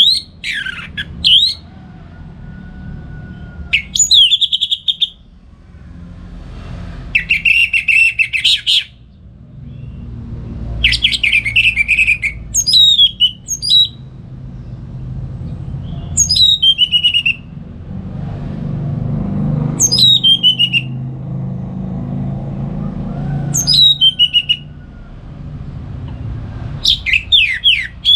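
Orange-headed thrush singing: loud, clear song phrases of whistled and slurred notes, many falling quickly in pitch, repeated every few seconds with short pauses between. A low steady rumble runs underneath.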